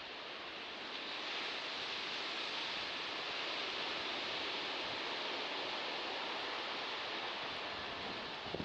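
Sea waves washing on the shore as a steady hiss of surf, swelling slightly about a second in.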